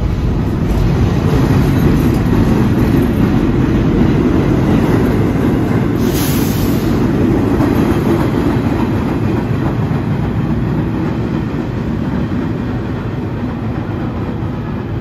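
R68-series subway train pulling out of the station close by: a steady, loud rumble of wheels on rail that slowly fades as the last car heads into the tunnel. A brief hiss comes about six seconds in.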